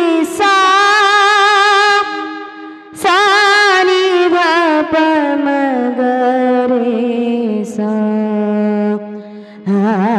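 Wordless sung alaap in a woman's voice: long held notes with vibrato and slow pitch glides, in phrases with short breaths between, over a sustained lower accompanying note. It is the melodic opening of a devotional kirtan song.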